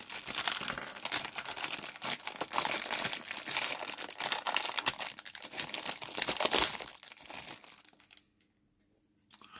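Thin plastic packaging bag crinkling and rustling as a bagged sprue of plastic figure parts is handled. The crackling dies away about eight seconds in.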